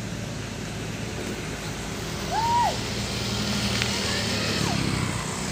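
Vehicle engine running steadily on a dirt road. A little after halfway comes a short whistle that rises and falls, with a fainter one near the end.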